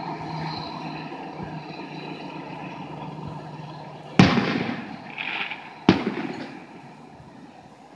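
Two aerial firework shells bursting about a second and a half apart, each a sharp boom trailing off in a rumbling echo, with a brief hiss between them. A steady low hum of traffic runs beneath in the first half.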